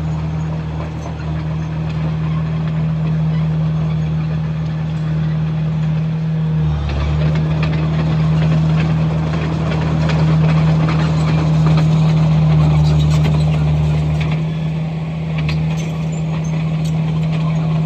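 Komatsu bulldozer's diesel engine running steadily under work. From about seven seconds in, a louder layer of clanking and scraping joins the drone as the machine works the dirt.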